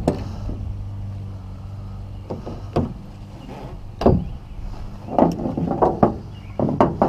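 Hollow knocks and clunks of a Pelican Icon 100X plastic kayak being shifted and strapped down in a pickup truck bed: a few single knocks, then a busier run of them near the end, over a steady low hum.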